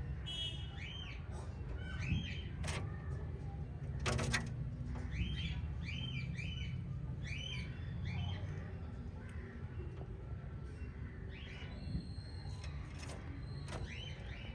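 Several budgerigars chirping, short rising-and-falling chirps in quick runs, with a couple of sharp knocks a few seconds in over a low steady hum.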